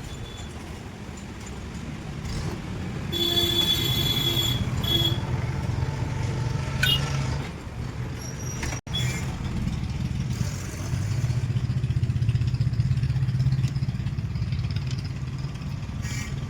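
Maruti Alto 800's small three-cylinder petrol engine idling steadily. There is a brief higher-pitched tone about three seconds in and a momentary break near the middle.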